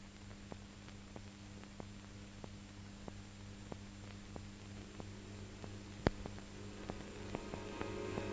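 Steady hum and hiss of an old film soundtrack, with faint regular clicks about three every two seconds and one sharper click about six seconds in. Music begins to fade in near the end.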